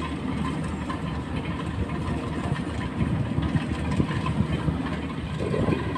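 Engine running steadily with a low, even hum.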